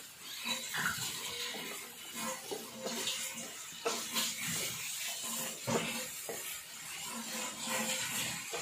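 Chicken pieces with onion and tomato sizzling in hot oil in a non-stick pan, stirred with a wooden spatula that scrapes and knocks against the pan again and again.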